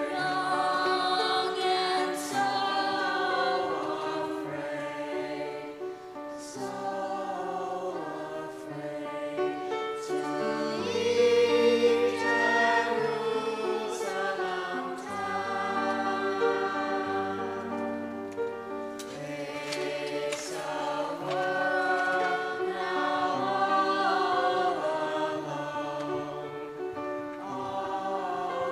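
A choir singing a song in held notes over a musical accompaniment, with low sustained bass notes coming in about a third of the way through.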